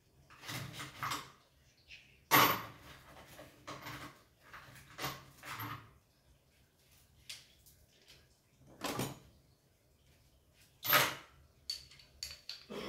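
Metal hand tools and small parts knocking and clinking on a workbench, in several separate clatters with quiet gaps, the loudest about two seconds in and again near eleven seconds, with a few light metallic clicks near the end.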